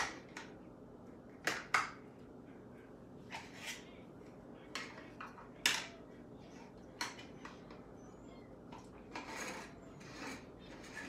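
Scattered light clicks and taps from handling false eyelashes and a small lash applicator with long fingernails: a dozen or so sharp ticks, the loudest right at the start, with a short rustle about nine seconds in.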